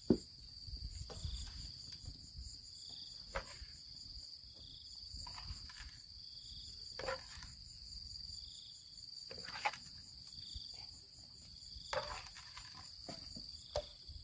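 Insects trilling steadily in the background, with short knocks and scrapes every few seconds as a plastic spatula stirs pieces of pork in a metal cooking pot.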